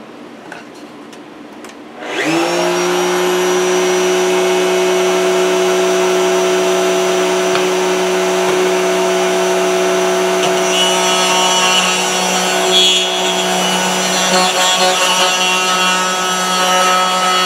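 Table-mounted router switched on about two seconds in, spinning up to a steady whine. It then cuts a circle in half-inch plywood as the board is turned around a pivot pin, with rougher cutting noise from about ten seconds in.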